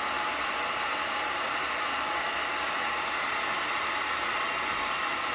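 Hair dryer running steadily on hot and high, a constant airy rush aimed at a clogged vape cartridge to melt thickened distillate.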